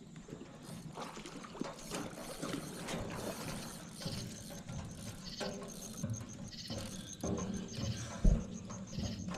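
Irregular clicking, rattling and scraping, like gear being handled, with a faint fast ticking from about halfway and one loud knock near the end.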